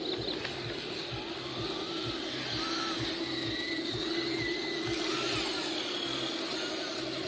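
Electric motor and gearbox of an RC rock crawler whining steadily as the truck crawls up a steep rocky slope, the whine swelling and dipping with the throttle.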